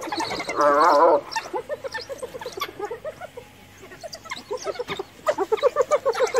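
Spotted hyena giggling under attack by African wild dogs: a loud, wavering, trembling call about half a second in, then a run of short staccato cries that grows louder near the end, with the wild dogs' high bird-like twittering mixed in. The giggling is the cornered hyena's distress call for help from its clan.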